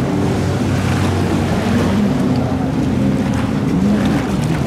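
Several stand-up jet skis' engines running at speed, their notes rising and falling as the riders carve turns, over the hiss of spray and water.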